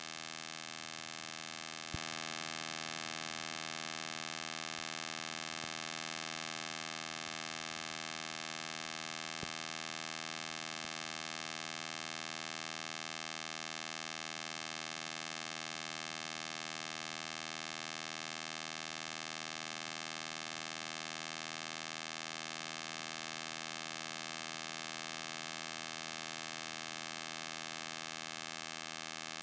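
Steady electrical hum, a buzz made of many even overtones that holds unchanged throughout. It gets slightly louder about two seconds in, with a faint click there and another near ten seconds.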